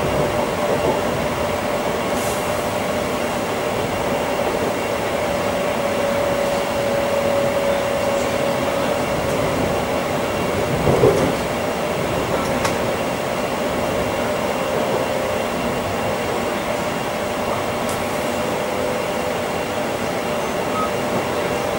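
Passenger-saloon noise of a Class 345 (Bombardier Aventra) electric multiple unit running: a steady rumble and hiss with a faint, even whine through the first two-thirds. A single brief louder bump about halfway through.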